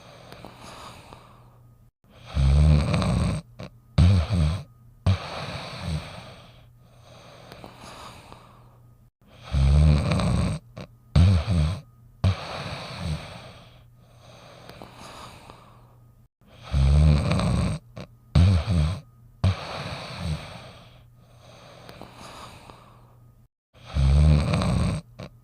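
A dog snoring heavily in a regular cycle, about every seven seconds. Each cycle is a loud, deep, rattling snore, then two or three short snorts, then a few softer breaths.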